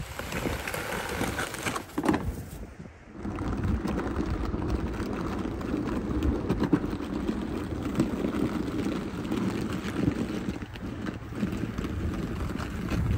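Snow pusher blade on a hand truck scraping along pavement, with the dolly's wheels rolling as it shoves snow ahead of it. The sound dips briefly about three seconds in, then runs on steadily.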